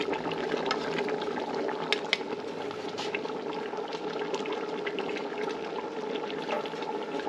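Pot of stew boiling, a steady bubbling with many small pops.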